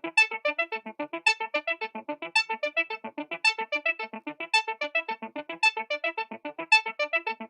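Outro music: a quick, steady run of bright plucked or synthesized keyboard notes with a regular accented beat.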